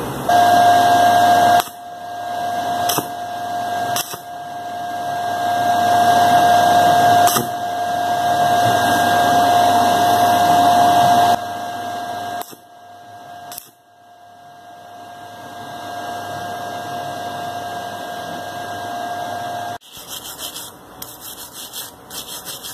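A small high-speed power tool running with a steady whine in two spells, about eleven and six seconds long, with a few sharp clicks during the first; near the end, light clicking and tapping of metal parts being handled.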